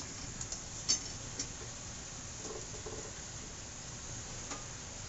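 Fried taro root pieces being dropped by hand into a steel kadhai of masala: a few faint soft taps and clicks over a low steady background.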